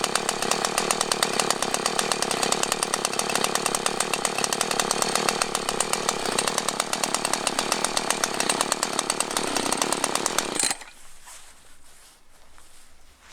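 Husqvarna 445 two-stroke chainsaw running steadily, a sound the owner calls lazy. It cuts off abruptly about three-quarters of the way through.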